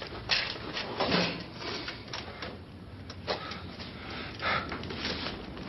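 A few scattered light knocks and clicks with rustling handling noise, in a small shop.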